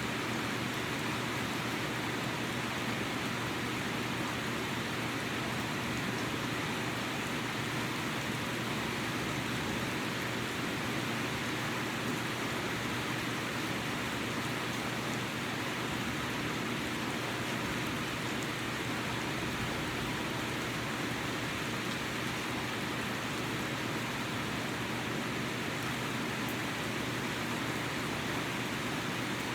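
Steady rain falling, an even hiss that does not let up or change.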